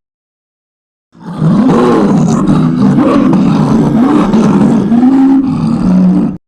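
Big-cat roar sound effect: one long roar, wavering up and down in pitch, starting about a second in and cutting off abruptly near the end.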